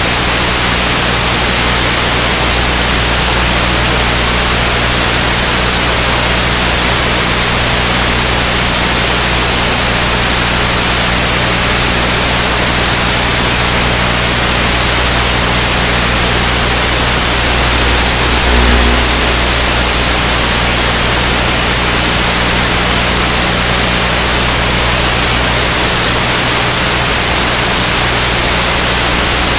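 Steady loud static hiss with a low electrical hum underneath, the audio channel of an analog FPV video link carrying no real sound.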